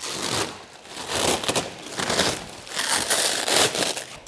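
Plastic stretch wrap crinkling and rustling in irregular bursts as it is pulled and peeled off a packaged rooftop tent.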